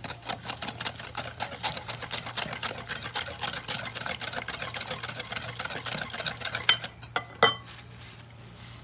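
Eggs and sugar being beaten by hand in a bowl: a fast, steady run of clicks as the utensil strikes the bowl, with two louder knocks near the end before it stops.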